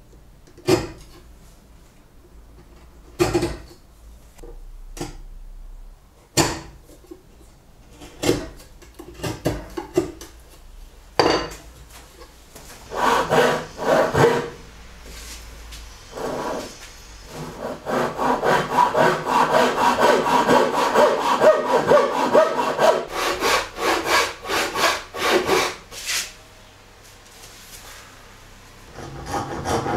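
Chisel work in wood: a handful of separate sharp knocks spread over the first dozen seconds or so. Then a hand saw cutting through a wooden board, with quick, even back-and-forth strokes through most of the second half.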